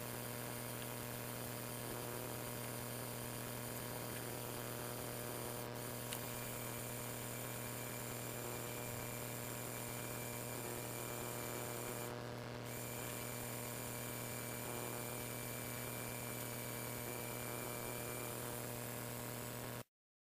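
A steady electrical hum made of several unchanging tones, cutting off suddenly near the end.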